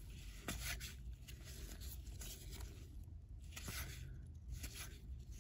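Cardboard baseball cards being slid one at a time off a stack in gloved hands: faint papery scrapes about once a second.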